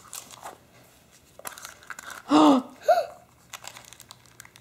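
Cellophane candy wrapper crinkling in small hands, in scattered light crackles. About halfway through there is a short voiced sound, with a second brief one just after it.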